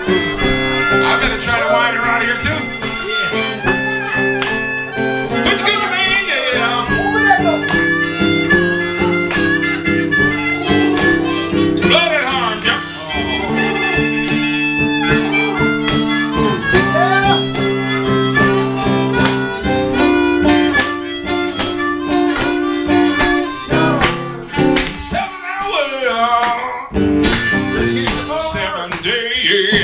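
Blues harmonica solo with bent notes over a strummed acoustic guitar, played live.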